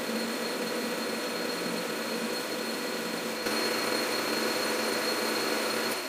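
Metal lathe running while an insert tool takes a turning cut on a steel bar: a steady mechanical hum with a faint whine over it, getting louder about halfway through.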